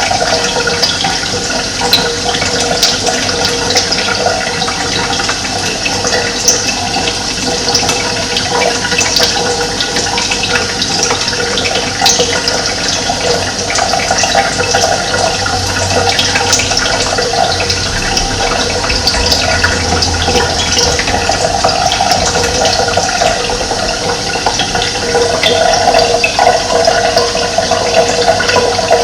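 Running water flowing and splashing steadily.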